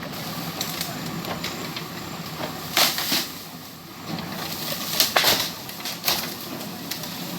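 Backhoe loader's engine running steadily, with several short crunching scrapes of its bucket working in rock and gravel: two about three seconds in, two about five seconds in, and one more about a second later.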